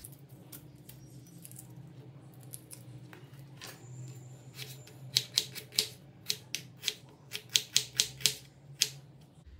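Kitchen knife chopping an onion on a wooden cutting board: a fast run of sharp chops, about four a second, starting about five seconds in and stopping about a second before the end. Before the chopping there are only a few softer taps and handling noises.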